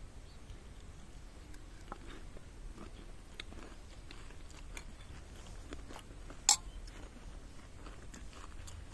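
A person chewing a mouthful of aalu nimki close to the microphone, with soft crunches and small wet mouth clicks. There is one sharper click about six and a half seconds in.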